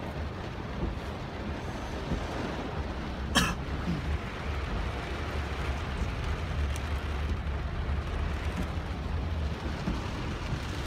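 Heavy tropical downpour falling on a car's roof and windshield, heard from inside the cabin as a steady wash of noise over a low rumble. A single sharp knock stands out about three and a half seconds in.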